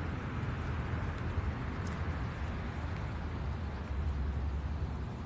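Outdoor background noise: a steady low rumble with faint, scattered ticks.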